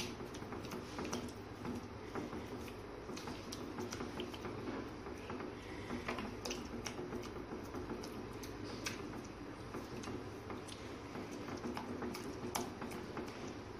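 Spatula stirring a thick curd-and-cream masala gravy in a pan nonstop, so the curd doesn't split: a soft steady scraping with scattered light clicks of the spatula against the pan, over the low simmer of the gravy.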